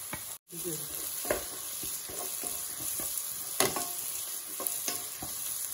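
Shredded cabbage, carrot and green capsicum sizzling in oil in a nonstick wok while a spatula stirs them, with irregular scrapes and knocks of the spatula against the pan. The sound cuts out briefly about half a second in.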